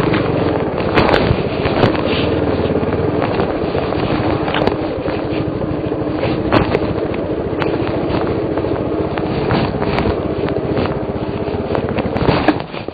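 Suzuki DR350's single-cylinder four-stroke engine running at a steady pace while riding a rough dirt trail, with sharp knocks and clatter from the bike hitting bumps.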